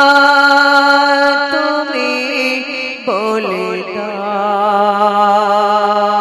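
Singing in a Bengali Islamic gojol: a voice holds long, wavering notes with no words, moving to a new note about two seconds in and sliding through a melismatic phrase around three seconds.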